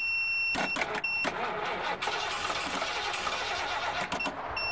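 Starter cranking the Mercury station wagon's V8 for a few seconds without it catching, while a steady high warning tone sounds on and off during the first second or so. The owner takes the weak start for a fault in the starting system: the solenoid or the starter.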